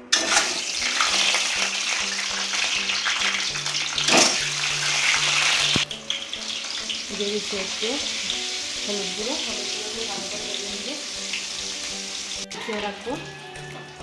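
Whole hard-boiled eggs frying in hot oil in an aluminium kadai, a loud sizzle that starts sharply as they go into the oil and keeps on as they are turned.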